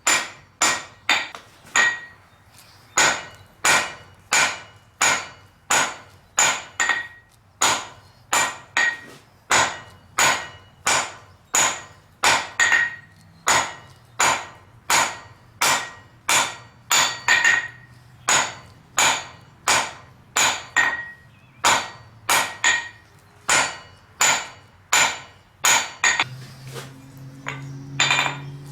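Blacksmith's hand hammer forging 1-inch square steel stock on an anvil: sharp, ringing blows at about one and a half a second, often in quick pairs. A low steady hum comes in near the end.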